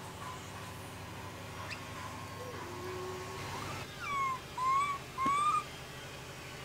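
Long-tailed macaque, likely a young one, giving three short, tonal cries between about four and five and a half seconds in: the first falls in pitch and the next two rise. A fainter, lower call comes a little earlier.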